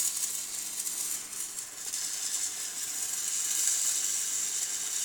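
Low-voltage, high-current DC electric arc hissing steadily across an 8 mm gap between metal rods, melting them and throwing sparks, with a faint steady hum underneath.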